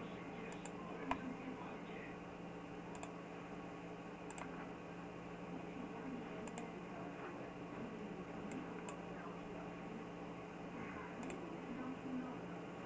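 Computer mouse clicking over a steady electrical hum and hiss, with one sharper click about a second in and a few fainter ticks spread through.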